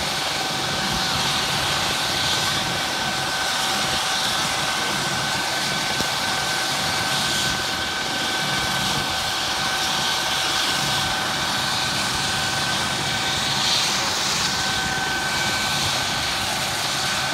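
Air ambulance helicopter running on the ground, a steady high whine over an even rushing noise.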